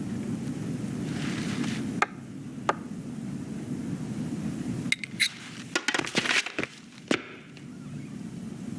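Film sound effects: a steady low rumble with a couple of single sharp clicks, then a quick flurry of sharp clicks and clinks midway that stops about seven seconds in.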